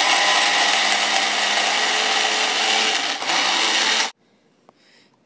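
Magic Bullet personal blender running at full speed with a loud, steady whir, briefly faltering near the end before cutting off suddenly about four seconds in.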